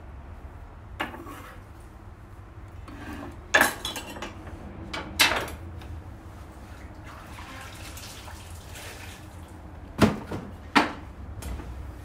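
Kitchen utensils and dishes handled on a wooden cutting board: a handful of short, sharp clinks and knocks of a knife and bowl, two of them close together near the end.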